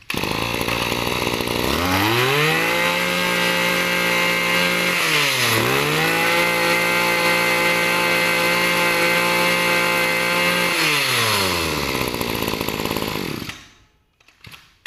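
Small 20cc two-stroke engine of a Maruyama brush cutter being test-run: it idles, then the throttle is opened to high revs twice, with a quick dip in between. It then falls back to idle and cuts out near the end.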